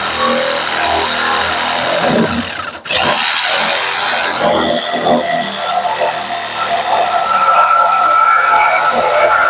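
Electric jigsaw blade sawing through the sheet-metal floor of a pickup truck bed, running steadily. It stops for a moment a little under three seconds in, then starts again and keeps cutting.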